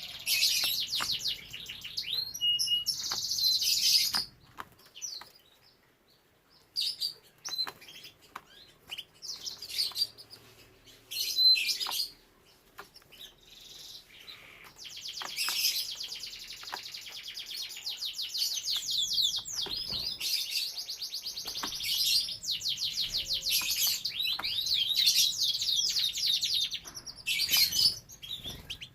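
Domestic canary singing in long, fast trills and rolls. It stops for a few seconds twice, with scattered single chirps in between, then sings a long unbroken trill through most of the second half.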